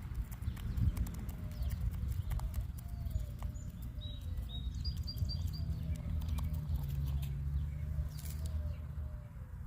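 Chicken making a soft, wavering call over and over, about twice a second, with a few sharp little clicks among the calls and a low rumble underneath. A few short, high chirps come about four to five seconds in.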